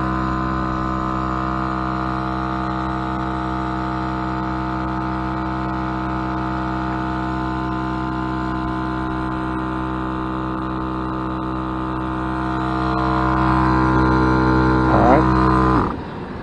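Dobinsons Zenith 12-volt portable air compressor running at a steady pitch while inflating a tyre, getting louder over the last few seconds. It is switched off and stops abruptly near the end.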